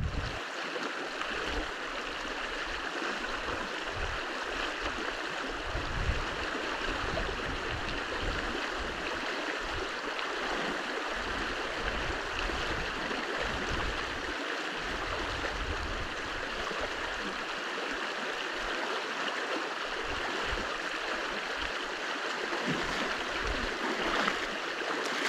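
Fast, deep stream rushing steadily around someone wading across it against a strong current, with irregular low bumps underneath.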